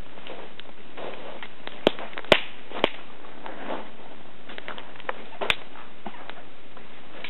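Wood campfire crackling: a run of soft ticks and hiss, with sharp pops about two, two and a half and three seconds in and again about five and a half seconds in.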